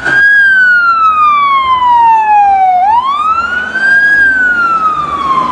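Fire truck siren wailing loudly: one tone sliding slowly down, sweeping back up about three seconds in, then sliding slowly down again.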